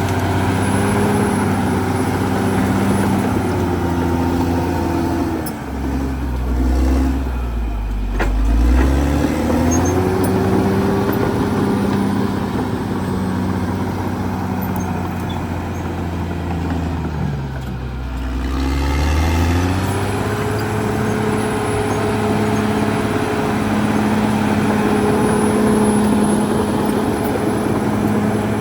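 Diesel engine of a Caterpillar D6R XL bulldozer running steadily. Its pitch drops twice, about six seconds in and again around seventeen seconds, and climbs back each time.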